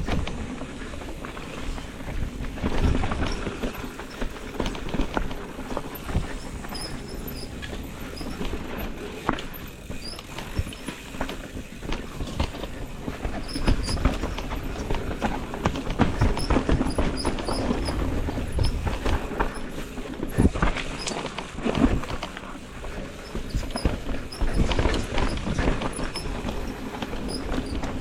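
Mountain bike rattling over a rough downhill trail: tyres running on dirt and rock, with frequent irregular knocks and clatter from the bike and low rumble throughout.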